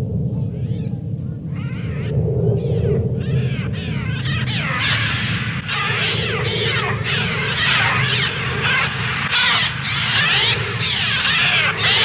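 A massed chorus of screeching bird cries, many shrill calls overlapping and growing denser and louder over the first few seconds, over a steady low rumble.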